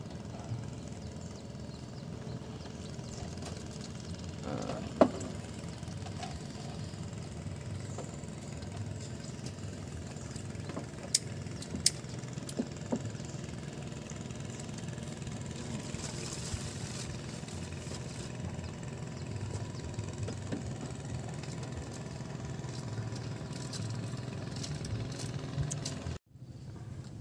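A steady low engine hum, with a few sharp clicks about five seconds in and twice around twelve seconds in; the sound cuts off suddenly near the end.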